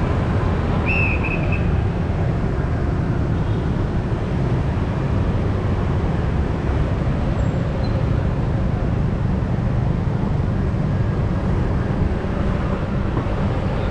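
Steady street traffic noise from passing motorbikes and cars, with a brief high-pitched toot about a second in.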